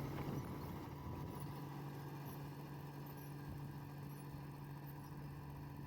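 Tractor engine running at a steady speed, drawing a ridge-forming and plastic-mulch-laying implement.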